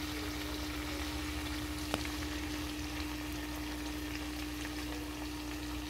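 Curry pig trotters sizzling steadily in a covered frying pan on the stove, with a steady low hum underneath and a single light click about two seconds in.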